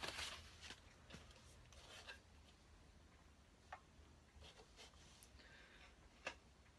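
Faint handling of packaging and parts: a short rustle, then a few light, scattered clicks, the sharpest near the end.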